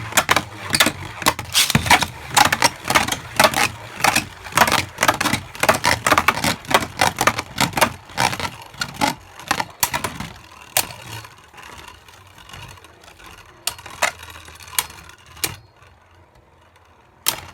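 Two spinning Beyblade Burst tops clashing in a plastic stadium: a rapid, dense clatter of clicks and knocks for about ten seconds, thinning to occasional knocks as the tops slow, with one last sharp knock near the end.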